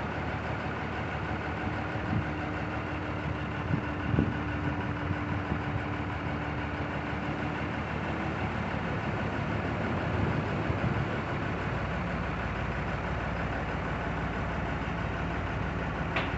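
Mobile crane's engine running steadily while it holds a concrete Accropode armour block on its hook. A steady whine sounds from about a second and a half in to about eight seconds in, and a few short knocks come about two to four seconds in.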